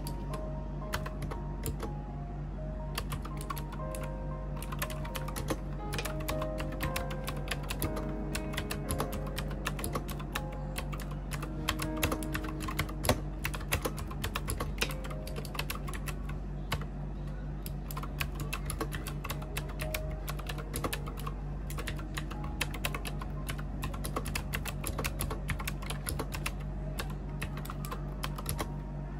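Continuous fast typing on a retro keyboard with round, typewriter-style keycaps, a dense run of uneven key clicks, with soft background music under it.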